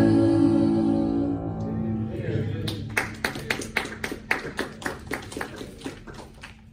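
The last held note of a sung duet with acoustic guitar fades out, then a small congregation applauds with scattered claps that die away after a few seconds.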